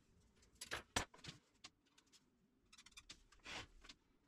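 Light clicks and knocks of small hard objects being handled: a few sharp ones about a second in, then a quick run of ticks with a short scrape about three seconds in.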